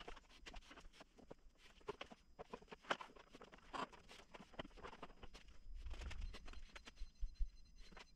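Plastic front fairing cowl of a motorcycle being handled and fitted by hand: scattered faint clicks and knocks of plastic against the frame and wiring, with a sharper knock about seven seconds in.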